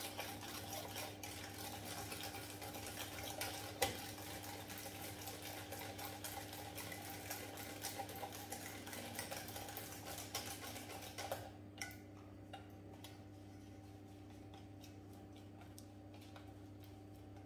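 Wire whisk beating an egg, sugar and cornstarch mixture in a small stainless-steel saucepan: a fast, steady run of scraping and clinking strokes that stops about twelve seconds in, followed by a few light taps. A low steady hum runs underneath.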